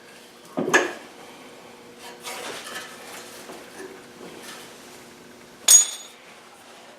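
Metal parts knocking and scraping: a knock about a second in, some shuffling scrapes, then one sharp, ringing metal clink near the end. This is the tractor's engine being shifted to free it from the driveshaft coupling.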